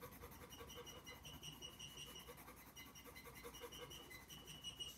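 Faint scratching of a white pencil shading on gray paper in quick, short strokes.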